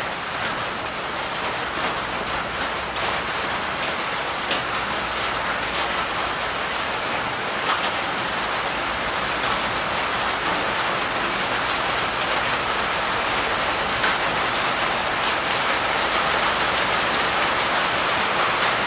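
Steady rain falling, a dense even hiss, with a few faint clicks of engine parts being handled.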